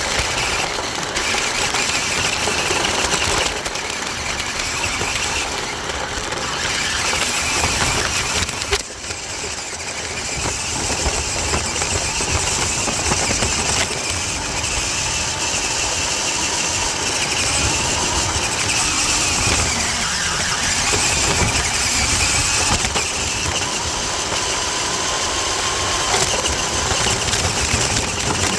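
Small electric motor and gears of a toy RC truck whining as it drives, over a rumble from its wheels on the ground. The sound drops briefly about nine seconds in, then carries on.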